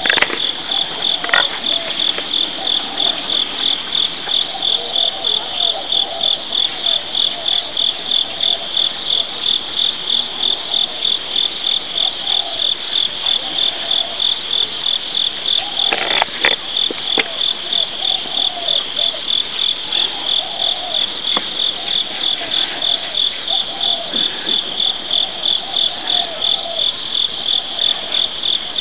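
Insects chirping in a steady, high-pitched chorus with an even, fast pulse that never lets up.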